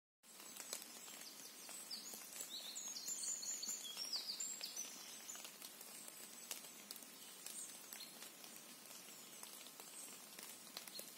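Faint woodland ambience: a steady quiet hush. About two seconds in, a songbird sings a quick phrase of short high chirps lasting a few seconds, and faint ticks are scattered throughout.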